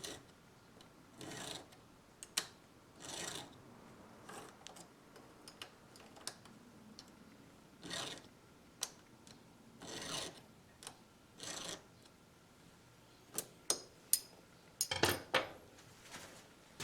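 Slow, uneven strokes of a hand tool rasping or rubbing on wood, each about a second long, with small clicks and knocks between them and a few sharper knocks near the end.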